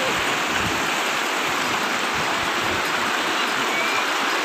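Shallow river rushing over rocky riffles: a steady, even rush of water.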